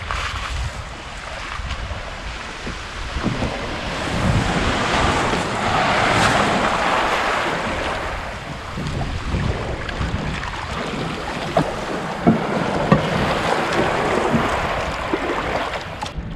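Sea waves washing onto the beach with wind buffeting the microphone, the surf swelling louder midway. A few light knocks come near the end.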